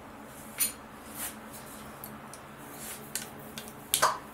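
A few short, light knocks of a rolling pin against a stone rolling board, the loudest about four seconds in, as a ball of stiff dough starts being rolled out.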